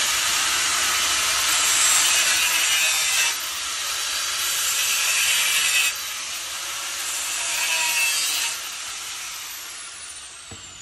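Handheld metal cut-off wheel running at high speed and cutting through the steel band clamps on a motorcycle muffler's heat shield, the grinding growing louder in three separate stretches as the wheel bites the straps. Near the end the tool is released and spins down with a falling whine.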